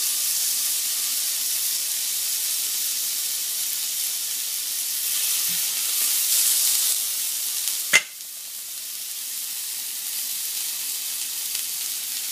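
Venison strip steak searing in hot oil in a cast iron skillet, a steady high sizzle. A single sharp click of metal tongs on the pan about two-thirds of the way in, after which the sizzle is quieter.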